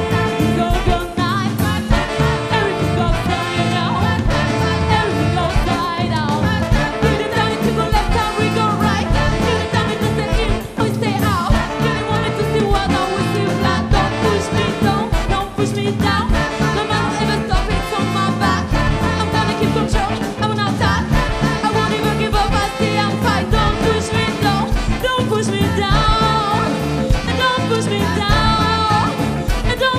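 A live band playing with a woman singing lead into a microphone, drum kit and electric guitar behind her, the music dense and unbroken.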